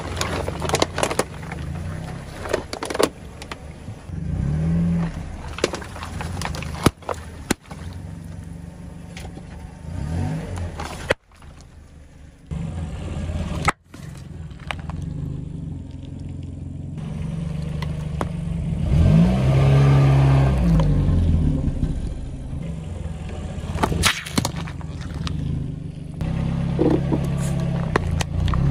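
A car's engine runs at low speed and revs up several times as the car creeps forward and back over objects. Sharp cracks, crunches and pops come from plastic bottles, balloons and small plastic items being crushed under the tyre.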